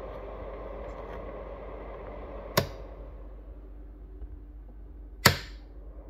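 Russell Hobbs RH4CLR1001B thermoelectric mini cooler's fan running with a steady, quiet hum. Two sharp clicks about two and a half seconds apart, the second the louder, as its switch is flipped from the hot setting over to cold.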